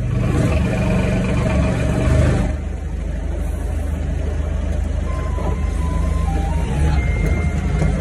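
Forklift engine running, heard from inside the operator's cab, louder for the first couple of seconds and then settling to a steady drone. About halfway through, a faint simple tune starts over it.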